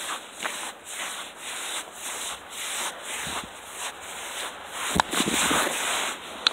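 Boots crunching through snow at a walking pace, about two steps a second, getting louder over the last second or so.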